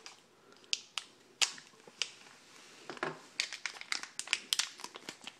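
Plastic packaging being handled and opened to free a poured silver bar: a run of sharp clicks and crinkles, sparse at first and coming quickly from about halfway through.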